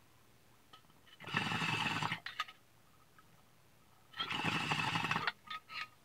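Water in a glass bong bubbling through two draws of about a second each, about three seconds apart, each trailing off in a few short gurgles.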